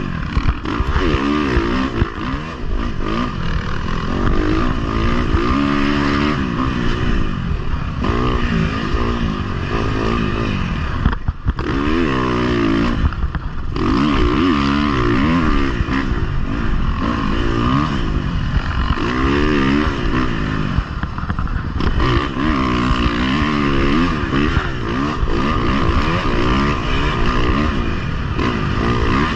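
Dirt bike engine, heard from the bike being ridden, revving up and down again and again as the throttle is worked, easing off briefly a little before halfway.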